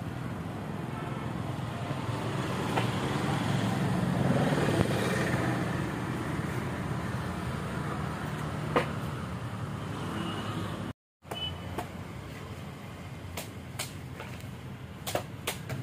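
Background road traffic: a low rumble that swells to a peak about four to five seconds in and then fades, as of a vehicle passing. The sound cuts out for a moment about eleven seconds in, and a few sharp clicks follow near the end.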